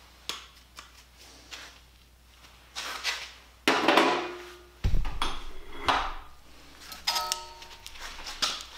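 A run of metal clanks and knocks as the steel rim in the bench vise and the welding table's tools and clamp are handled. The loudest come about halfway through, one with a heavy thump, and several leave a short ringing tone from the struck steel.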